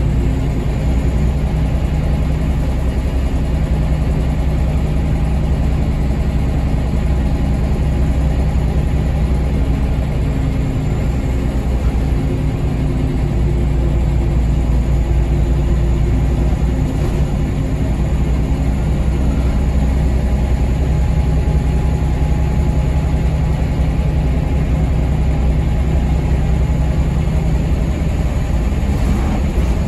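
Scania DSC9 six-cylinder diesel of a Scania L94UB city bus running, heard from inside the passenger cabin: a steady low engine drone over road noise. Its pitch dips and comes back up a couple of times.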